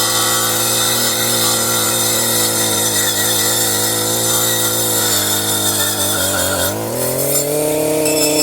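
Circular saw cutting through a small tree trunk, the motor's pitch wavering as the blade is loaded, then rising to a higher steady note near the end as the saw speeds back up.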